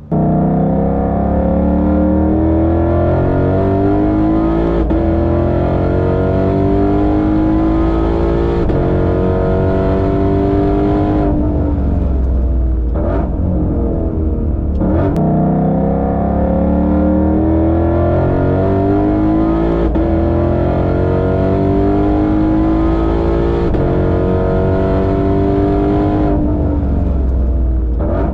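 Ford Mustang Shelby GT500's supercharged 5.2-litre V8 at full throttle through an aftermarket exhaust with an X-pipe. The note climbs and drops back again and again as it upshifts through the gears, lifts off about twelve seconds in, then pulls through the gears again and lifts near the end.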